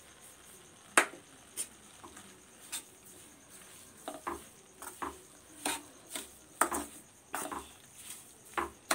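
A metal slotted ladle stirring sugar into thick grated-carrot halwa in a stainless steel pan, scraping and knocking against the pan. There is a sharp knock about a second in, then repeated scrapes about twice a second from about four seconds in.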